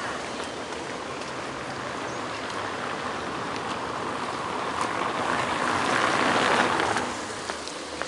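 Outdoor harbourside street ambience: a steady hiss that swells to its loudest at about six to seven seconds in, then drops off quickly, with a few faint clicks.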